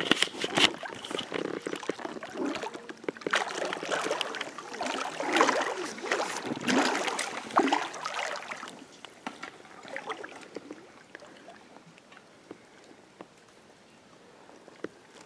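Water sloshing and splashing close by in irregular bursts as a float tube is paddled through the river. It dies down after about eight seconds, leaving only a few faint clicks.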